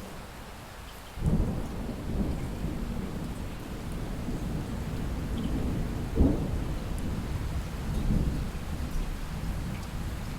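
Light rain falling steadily, with a roll of distant thunder that breaks in suddenly about a second in and rumbles on, swelling again around the middle and later.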